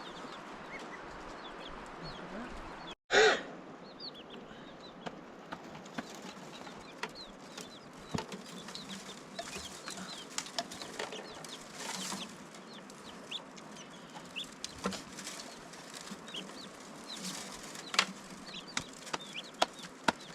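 Chickens clucking, with scattered sharp clicks and knocks. The loudest sound is a short pitched call just after a brief dropout about three seconds in.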